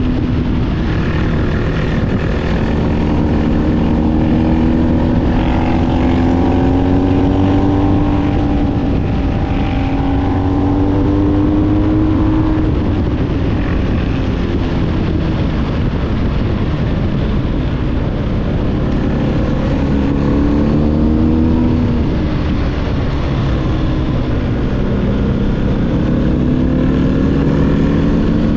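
BMW R1250GS's boxer twin through an SC-Project SC1-R GT slip-on exhaust, heard from the rider's seat under way, its note rising and falling several times as the throttle is opened and closed.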